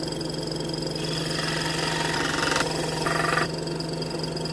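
Ridgid scroll saw running, its reciprocating blade cutting a pine grip blank with a steady hum. The saw stops right at the end.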